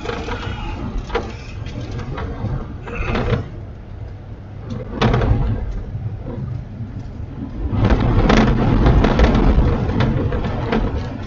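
Rumbling noise inside a moving vehicle, with scattered knocks and rattles, loudest from about eight to ten seconds in.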